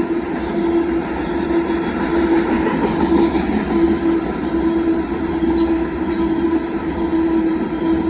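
Union Pacific gravel hopper cars of a freight train rolling past in a steady, loud rumble. Through it a single steady tone keeps breaking off and returning.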